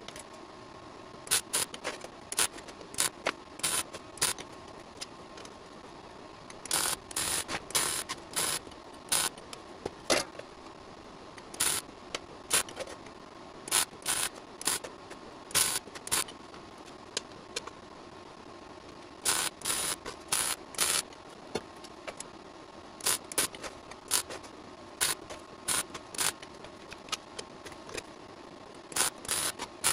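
Electric arc welding done in short bursts, like a run of tack welds: each burst of arc crackle lasts a fraction of a second, coming in quick clusters with pauses between, over a steady shop hum.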